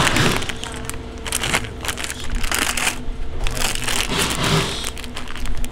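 Plastic candy packets crinkling as they are picked up and handled, in several short rustling bursts, over a faint steady hum.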